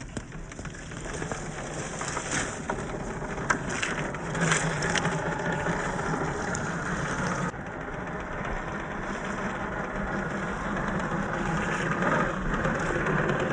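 Axial SCX10 III RC crawler driving over rough ground: its brushless electric motor and drivetrain run under the noise of the tyres on the terrain, with scattered sharp clicks. The sound shifts abruptly about halfway through.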